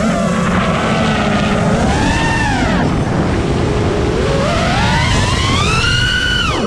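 FPV quadcopter's brushless motors and propellers whining. The pitch swoops up and down with the throttle through the flips and dives, climbing to a high whine after about four seconds and dropping sharply at the end. A rough rushing noise, typical of air over an onboard camera, runs underneath.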